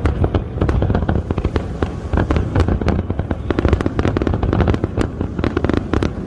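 Fireworks show: a dense, continuous barrage of bangs and crackles, many reports a second, over a steady low rumble.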